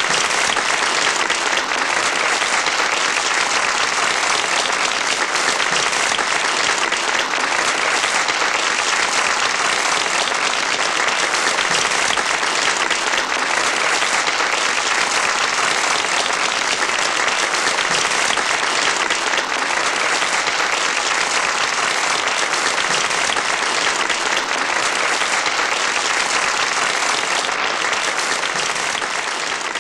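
Large audience applauding: a dense, steady clatter of many hands clapping at once, starting to fade near the end.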